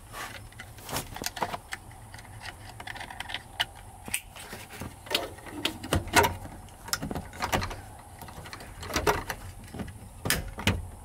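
Irregular clicks, taps and knocks of hands working a wire up behind a pickup's plastic under-dash trim and fastening it in place, with scattered sharper snaps against the plastic.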